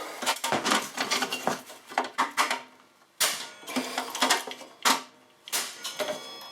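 A mallet knocking on the rails of an Evolution Rage 4 chop saw, bending them back into line: a run of uneven blows, with a few heavier ones in the second half.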